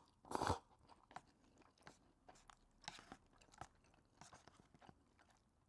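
Someone eating instant cup noodles. One loud eating noise comes just under half a second in, then soft chewing with scattered small wet clicks.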